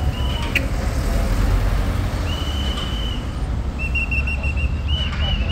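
Steady low rumble of street traffic, with a thin high whistling tone that comes and goes in short stretches over it.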